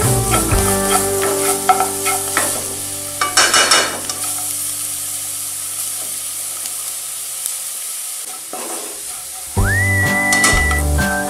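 Minced garlic sizzling in melted butter in a nonstick frying pan, stirred and scraped with a plastic slotted spatula, with the scraping strokes mostly in the first few seconds. Background music plays underneath and comes back louder near the end.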